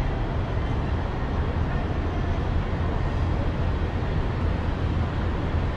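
Steady low rumble with a hiss over it: the ambient noise of a large train-station concourse.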